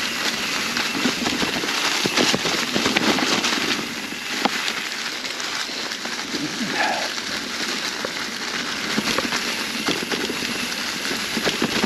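Mountain bike tyres rolling over a trail covered in dry fall leaves, a dense steady crackle and crunch of leaves and small stones under the wheels.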